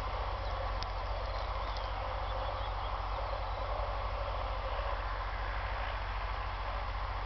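Steady outdoor wind rumble and hiss on the microphone, with a few faint high chirps in the first two seconds.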